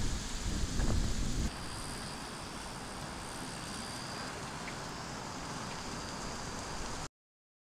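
Outdoor ambience: gusty wind rumbling on the microphone for about the first second and a half, then a steadier, quieter hiss of distant traffic with a faint high tone. It cuts off abruptly to silence about seven seconds in.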